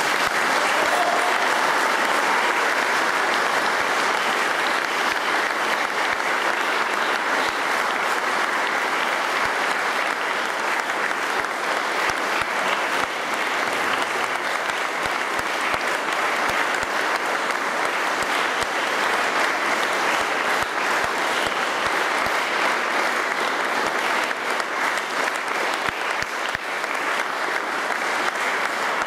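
Audience applauding with steady, even clapping.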